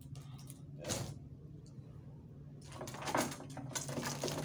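Knocks and clatter of rawhide wayang kulit puppets being swung and struck during a puppet fight: one sharp knock about a second in, then a run of quick knocks and rattles in the last second and a half. A steady low hum runs underneath.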